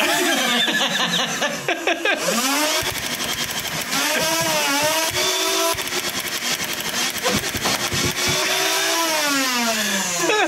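A voice singing loudly in long, drawn-out sliding notes, a wake-up song aimed at someone asleep in bed.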